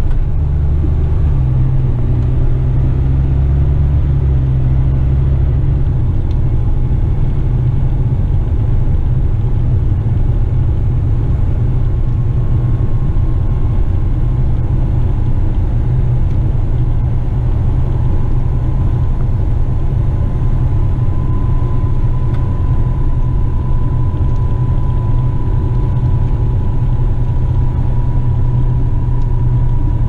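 Western Star tipper truck's diesel engine and drivetrain running under way, heard from inside the cab as a loud, steady low drone, with a faint high whine that grows plainer from about halfway through.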